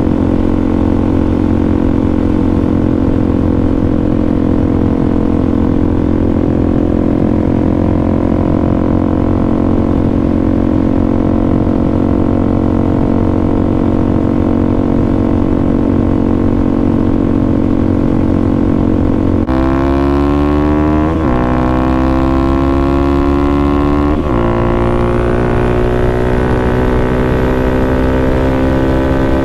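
Suzuki DR-Z400SM's single-cylinder four-stroke engine running at a steady cruise. After an abrupt cut about two-thirds through, it accelerates with its note rising, broken briefly twice by gear changes.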